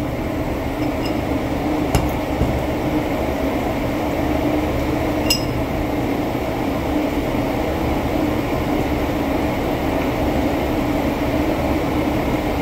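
Steady hum of boiler-room equipment running in the background, with a couple of light metallic clinks, about two seconds in and again about five seconds in, as a pipe fitting is handled.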